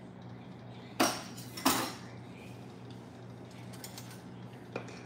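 Metal cutlery clattering in a kitchen drawer's utensil tray as a hand rummages for a utensil: two loud rattles about a second in, then a few light clinks near the end.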